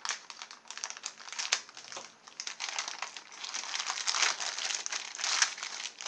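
Scissors snipping through a plastic mailing bag, a run of short sharp clicks, then the crinkling of plastic packaging as a clear bag of wire connector leads is pulled out and handled, densest about four to five and a half seconds in.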